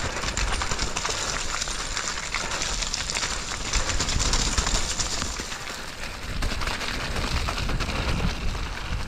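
Mountain bike riding fast down a wet, muddy trail: tyres running through mud and the bike rattling over rough ground, with wind rumbling on the microphone.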